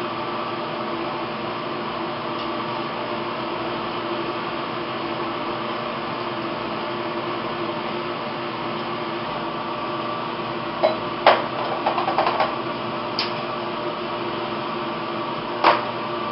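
Steady hum of a lab cabinet's ventilation fan, with several fixed tones in it. Short clicks and knocks of plastic labware being handled and set down come in a cluster about eleven to twelve seconds in, then once or twice more near the end.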